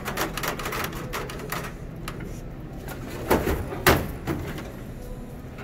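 Knocks and clatter of a checkout conveyor's roller assembly being worked loose and handled under the lifted belt bed. Two louder sharp knocks come about three and a half and four seconds in.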